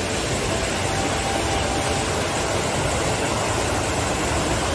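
Mountain creek in flood, white water rushing over boulders and stones in a steady, even roar. The stream is running far higher than usual after days of storm.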